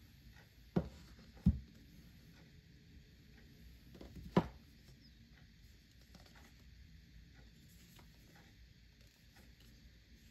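A cardboard iPhone 15 Pro Max box is handled on a wooden desk. Three sharp knocks come from the box touching down and being tapped: two about a second in and a louder one about four seconds in. Between them are faint rustles of fingers on the box.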